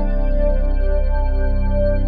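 Background music with sustained keyboard or organ-like chords over a steady pulsing bass.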